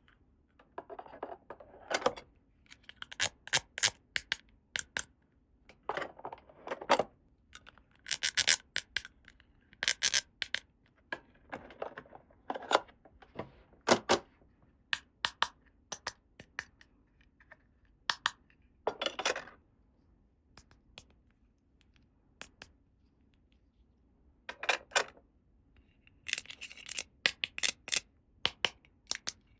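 Small plastic toy playset pieces and their packaging being handled: irregular sharp clicks and taps, often in quick clusters, with a few short rustles and brief pauses between.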